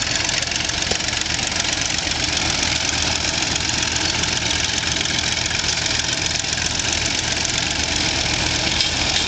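Antique crawler tractor and engine-driven elevating scraper working in dirt: engines running steadily under load.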